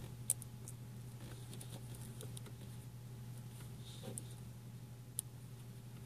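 Faint rustling and small ticks of fingers handling the stripped end of a Cat-5 cable, sorting its twisted wire pairs, over a steady low hum. Two sharper clicks stand out, one near the start and one about five seconds in.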